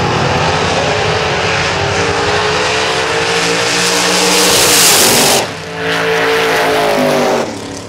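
Two gasser drag cars launching side by side and accelerating hard down the drag strip, their engines loud at full throttle and slowly climbing in pitch. There is a brief dip about five and a half seconds in, and the sound falls away near the end as the cars pull off down the track.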